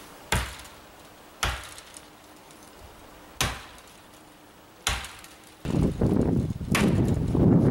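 Four sharp, irregularly spaced chopping blows into the base of a standing beech sapling, each a crisp knock on green wood. Near the end a louder, continuous rough rasping begins at the trunk.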